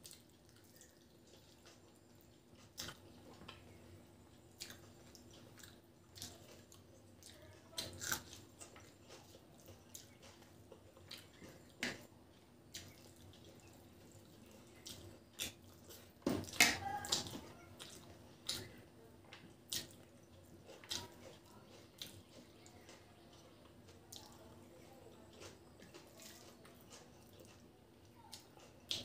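Close-up wet eating sounds of rice and chicken curry being eaten by hand: chewing, mouth smacks and sticky finger-and-rice noises, heard as scattered short clicks. The loudest cluster comes a little past halfway, over a faint steady hum.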